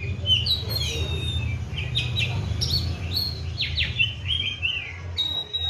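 Oriental magpie-robin (kacer) singing a rapid run of varied whistled phrases, sliding up and down in pitch, with a low steady hum underneath.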